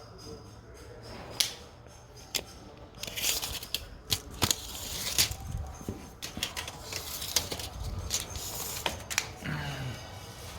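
Irregular clicks and taps with stretches of rustling, from a tape measure and a paper lettering template being handled during measuring.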